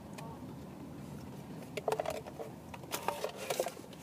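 Crinkling and crackling of a plastic chip bag in two short bouts, about two and three seconds in, over the steady low road rumble of a moving car's cabin.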